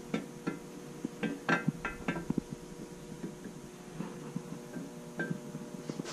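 Steel camshaft clicking and clinking against the cam bearings as it is pushed and twisted through an aluminium LS engine block. These are irregular light metal knocks, some with a short ring, busiest a second or two in. The cam is catching on the burred edge of the rearmost new cam bearing.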